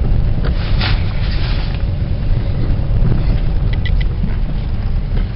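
Car engine and tyre noise heard from inside the moving car, a steady low rumble.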